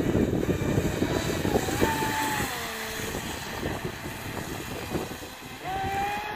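Aquacraft Revolt 30 RC boat's brushless electric motor whining at speed over a steady rushing noise. The whine rises and then drops about two seconds in, fades, and comes back steady near the end.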